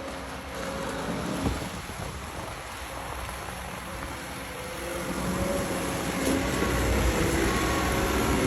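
Excavator engine running steadily, getting louder about five seconds in as the machine works harder.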